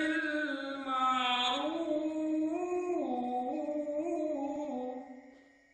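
A man's voice reciting the Quran in a melodic chant (tilawah), holding long ornamented notes that step up and down in pitch, then fading out about five seconds in.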